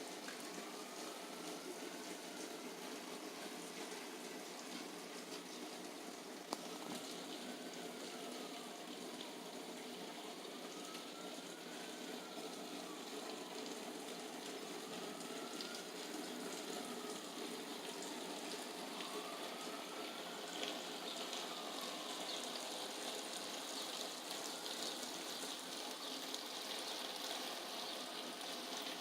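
Steady rain, an even hiss with no let-up. A faint tone rises and falls slowly about every four seconds behind it, and there is one sharp click about six seconds in.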